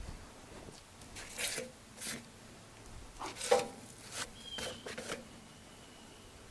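A few short scrapes, rustles and knocks, the loudest about halfway through, with a bird chirping briefly after it.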